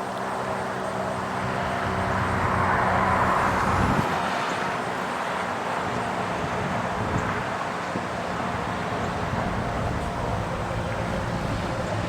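Federal Signal STH-10 outdoor warning siren slowly winding down after its alert, giving a steady low hum of several tones. A passing vehicle's noise swells and fades about three seconds in.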